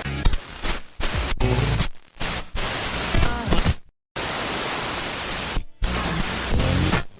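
Static-like signal noise sound effect: a loud hiss across the whole range with a low hum and faint wavering tones under it. It cuts out briefly several times, with a complete dropout about four seconds in.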